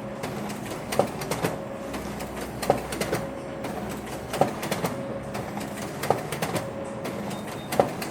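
Office printer running, with a sharp clack about every 1.7 seconds and lighter clicks between them, over a steady mechanical hum.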